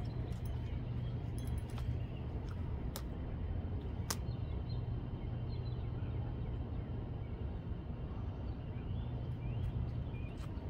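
Outdoor ambience: a steady low rumble, with a few sharp clicks and faint bird chirps near the end.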